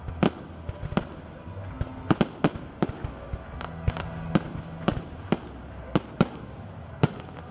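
Aerial firework shells bursting in a rapid, irregular series of sharp bangs, about two a second.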